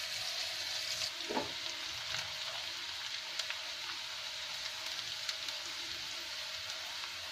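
Sliced shallots and garlic sizzling as they sauté in hot oil in a frying pan, with a few clicks of a wooden spatula stirring against the pan.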